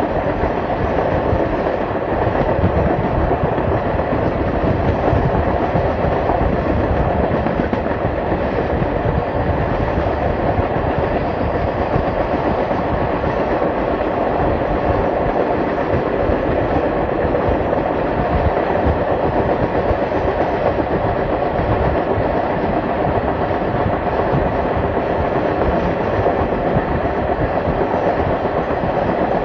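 Excursion train behind Canadian Pacific 4-6-2 steam locomotive No. 1201 rolling steadily along the track, with a continuous rumble and clatter of wheels on rail.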